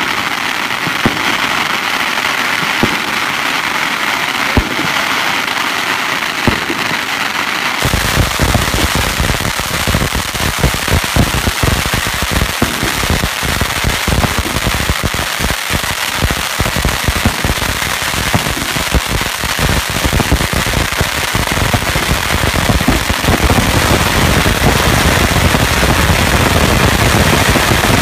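Long hanging strings of Chinese firecrackers going off in a continuous rapid crackle of sharp bangs. About eight seconds in the barrage becomes denser and heavier, and it grows louder again near the end.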